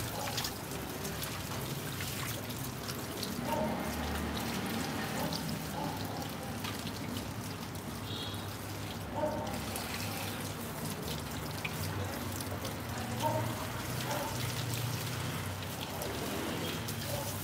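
Water from a garden hose running steadily, pouring and splashing over a dog's wet coat and onto concrete as the dog is rinsed.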